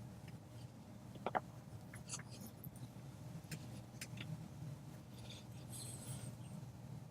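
Faint handling sounds of a rubber weatherstrip being worked by hand onto a window's glass: a short squeak about a second in, then light scattered ticks and rubs over a low steady hum.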